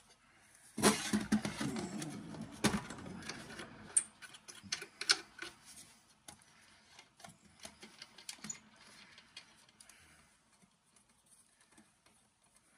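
Parts of a Ryobi cordless circular saw clinking and rattling as it is handled and taken apart by hand. A busy burst of knocks and rattles comes about a second in, then scattered light clicks that fade out after about nine seconds.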